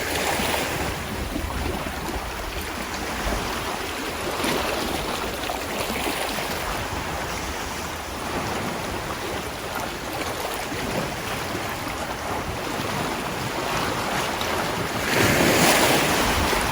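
Sea waves washing in a steady wash of surf, with a louder surge of water about fifteen seconds in.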